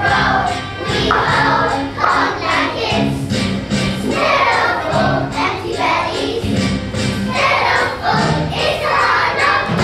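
A group of young children singing together in chorus over an instrumental accompaniment, in phrases of about a second each.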